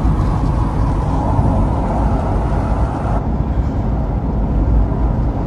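Steady low rumble and rush inside a vehicle's cabin moving at highway speed: tyre, engine and wind noise. It changes slightly about three seconds in.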